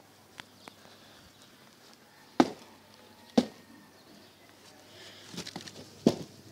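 Handling noise on the recording device: a few light clicks, then three loud sharp knocks, a second apart and then near the end, with a flurry of lighter bumps just before the last one.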